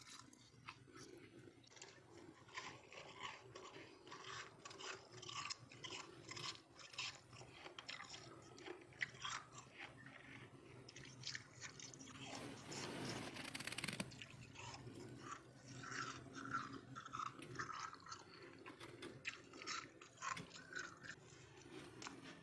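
Freezer frost being bitten and chewed close to the mouth, a steady run of crisp, crackling crunches. About halfway through, a louder continuous rasping noise lasts about two seconds.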